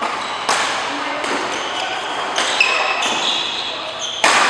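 Doubles badminton rally in a large hall: rackets strike the shuttlecock several times, about a second or more apart, and the sharpest hit comes near the end. Between the hits, court shoes give short high squeaks on the floor.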